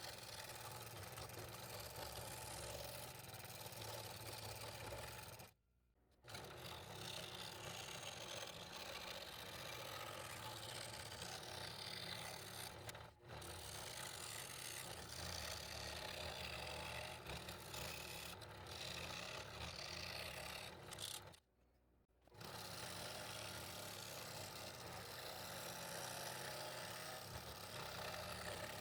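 Scroll saw running steadily with a number 5 blade, cutting through double-stacked quarter-inch red oak. The sound cuts out abruptly twice for under a second, about six seconds in and again about twenty-two seconds in.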